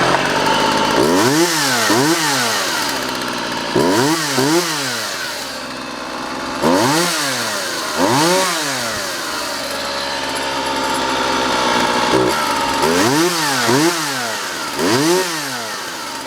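Craftsman 2.2 cubic inch two-stroke chainsaw running and being revved again and again, mostly in quick pairs of throttle blips that rise and fall in pitch, with steadier running between them. The engine picks up and settles back cleanly, as a saw in good running order does.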